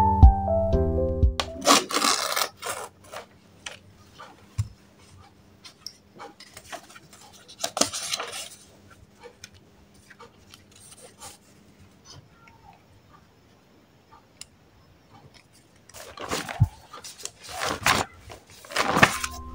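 Paper rustling as notebooks and loose sheets are handled and pages are turned on a desk, with a few light taps. Background music plays for the first second and a half and then stops.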